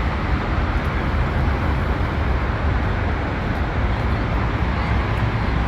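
Dubai Metro Red Line train running: a steady rumble with an even hiss of motion noise.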